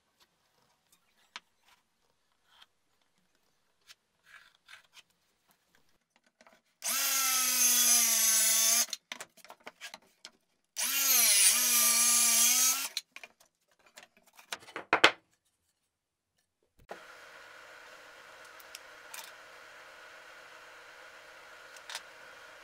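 Circular saw making two short cuts through plywood, each about two seconds long, with a steady motor whine while cutting. Light taps and clicks of handling come before and after.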